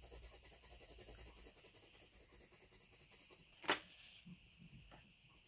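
Faint, fast scratching of a pointed scraper tool through wet oil paint on thick paper, hatching short strokes. A single sharp click comes a little over halfway through, followed by a few light ticks.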